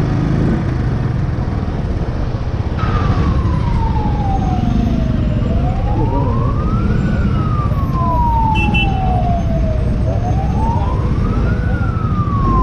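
An emergency-vehicle siren in a slow wail starts about three seconds in, its pitch falling and rising in long sweeps of a couple of seconds each. Underneath is the steady rumble of a motorcycle engine and wind.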